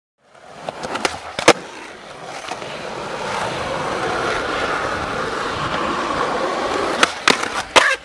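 Skateboard wheels rolling on asphalt, the rolling noise building as the board picks up speed and then holding steady. There are a few sharp clacks of the board against the ground in the first second and a half, and several louder clacks just before the end.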